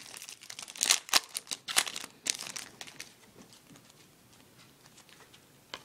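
Shiny foil wrapper of a Topps Chrome trading-card pack crinkling as it is torn open and peeled off the cards, for about two and a half seconds. Then near quiet, with one faint click near the end.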